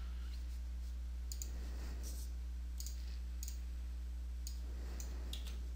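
Several short, sharp computer mouse clicks, scattered unevenly, some in quick pairs, over a steady low electrical hum.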